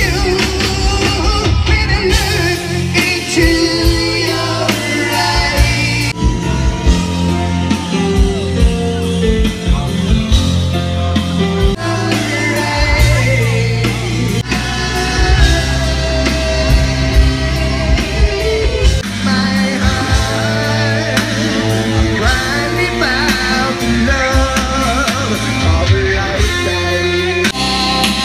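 Rock band playing live with a singer, the vocal over electric guitars, bass and a steady drum beat.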